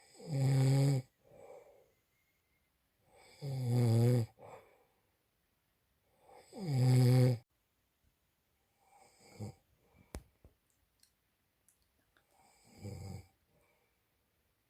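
A man snoring loudly in his sleep: three loud snores about three seconds apart, each about a second long, then two fainter ones.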